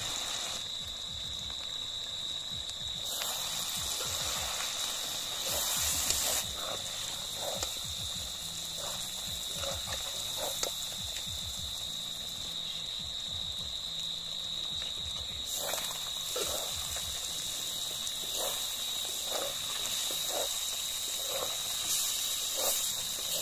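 Spiced pork pieces frying in oil in an iron karahi, with a soft hiss and scattered clicks and scrapes of a metal spoon against the pan, more frequent near the end as the masala is stirred in. A steady high-pitched whine runs underneath throughout.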